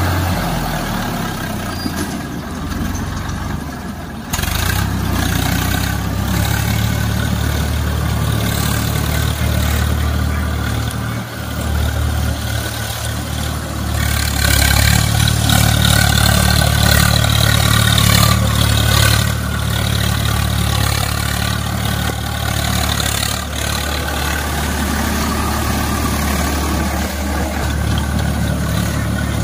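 Swaraj 855 FE tractor's three-cylinder diesel engine running steadily under load while it pulls a rotavator through wet paddy mud. The engine is louder for a few seconds about halfway through.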